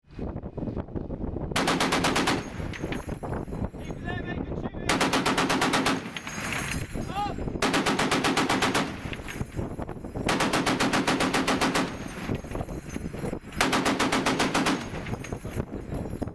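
.50 calibre heavy machine gun firing five bursts of about one to two seconds each, a couple of seconds apart, with a steady rushing noise between the bursts.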